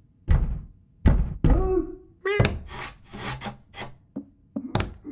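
Cartoon cat thudding its paws against a wooden door again and again, meowing twice in the first half, with a stretch of scratching at the door in the middle and a quick run of thuds near the end.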